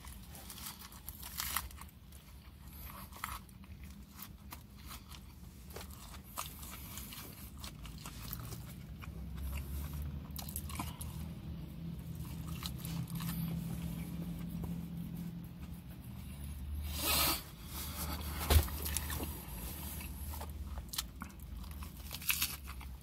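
A man chewing and crunching rotisserie chicken close to the microphone, with scattered small wet clicks and crunches. A low hum comes in about nine seconds in, and there is one short, louder rush of noise about seventeen seconds in.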